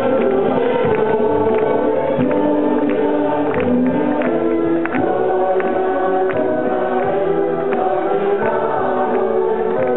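Choir singing a Christian song with instrumental accompaniment and a steady beat.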